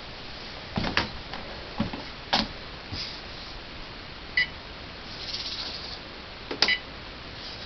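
A few scattered light clicks and taps, with one short electronic beep about four and a half seconds in.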